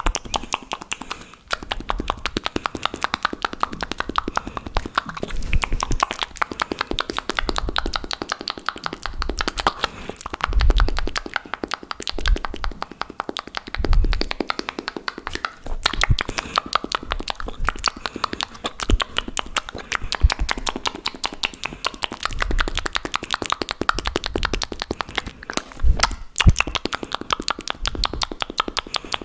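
Fast, aggressive ASMR mouth sounds close to the microphone: a rapid, dense run of wet clicks, pops and tongue smacks, with a few heavier low pops scattered through.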